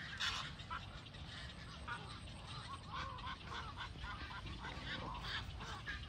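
A large colony of waterbirds calling: many short, overlapping calls, none standing out for long.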